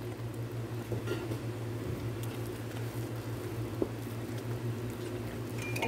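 A spoon stirring thick harees in a cooking pot: soft wet squishing with a few light clicks, over a steady low hum.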